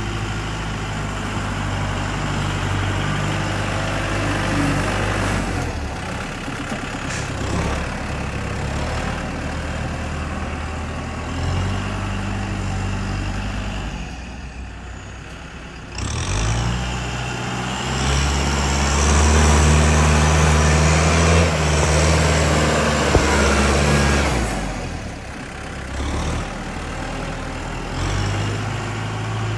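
Heavy diesel earthmoving machinery engines running, with the pitch stepping up and down. A louder stretch of revving under load starts about halfway through and lasts several seconds.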